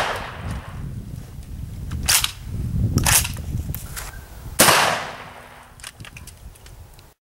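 Gunshots: the fading echo of one shot, then three more shots about two, three and four and a half seconds in. The last is the loudest, with a long trailing echo.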